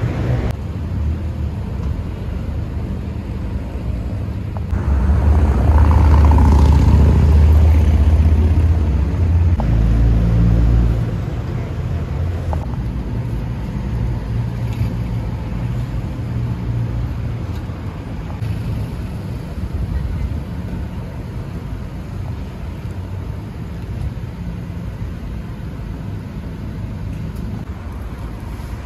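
Urban street ambience dominated by road traffic: a steady low rumble of vehicles, swelling louder for about six seconds some five seconds in.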